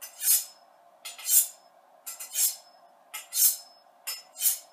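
Kitchen knife blade drawn along a steel honing rod, five strokes about a second apart, each with a bright ringing swish. The strokes ring alike, which is the sign of the blade being held at the same angle on every pass.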